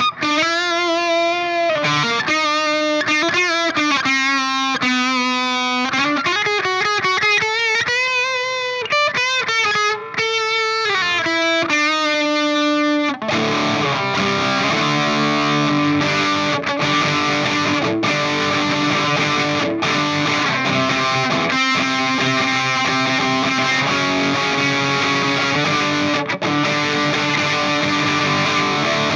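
Distorted electric guitar played through effects. About the first half is a single-note lead line with bends and vibrato; after that it changes to dense, thick distorted chords.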